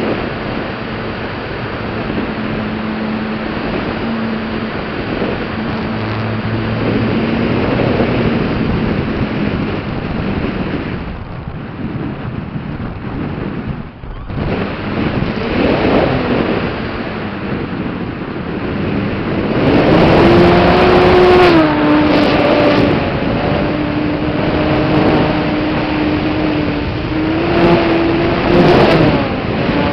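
Radio-controlled Yak aerobatic model plane's motor and propeller, heard from an onboard camera with heavy wind rush over the airframe. The note drops away briefly near the middle as the throttle comes back, then from about two-thirds in comes back louder and higher, stepping up and down with the throttle through the manoeuvres.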